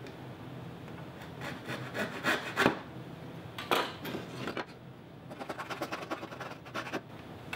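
Wood being scraped and rubbed by hand at a picture frame's miter joint while the old spline remnants are cleaned off: a few separate strokes, then a quicker run of short strokes in the second half.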